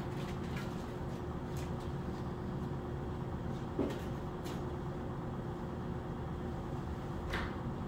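Steady low hum of room background noise, with a few faint clicks and a brief low thud about four seconds in.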